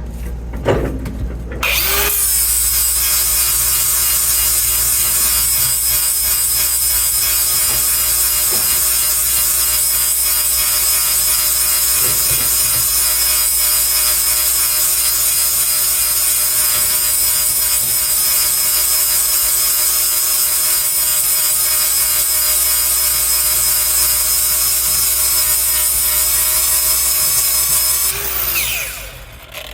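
Handheld power grinder sharpening a worn tooth on the mill of a Bandit Beast 4680 grinder. It starts about two seconds in and runs steadily, a motor whine over a grinding hiss, then winds down near the end.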